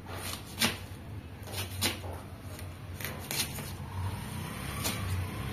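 Kitchen knife slicing cabbage into fine julienne strips on a cutting board: a crisp cut and tap of the blade against the board about once a second, unevenly spaced.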